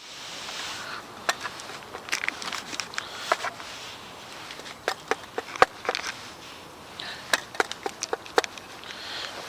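Irregular sharp clicks and light knocks, a dozen or more scattered unevenly, over a soft steady hiss.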